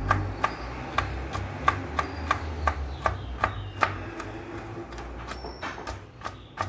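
Knife chopping Brazil nuts and walnuts on a cutting board: a steady run of sharp chops, about three a second.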